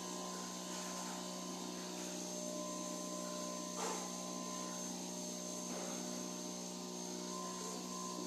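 Cowen 60-frame honey extraction line running with a steady motor hum, with one short knock about four seconds in.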